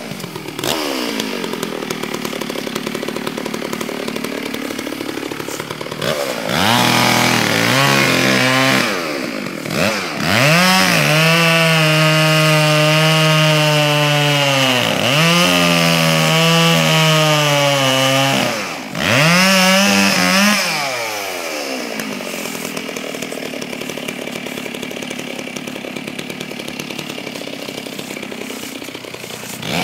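Two-stroke chainsaw running, dropping back to a lower speed between spells of being held at high revs for several seconds, as in cutting through a dead tree. The longest high-speed run lasts about eight seconds in the middle; it dips twice and then settles back to a lower, rougher speed for the last third.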